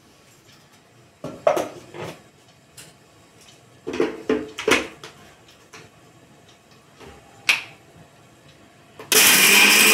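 Clacks of a steel jar being seated and handled on a kitchen mixer grinder, then about nine seconds in the mixer grinder's motor switches on with a loud, steady whir, dry-grinding roasted gram, dried red chillies, garlic and ginger.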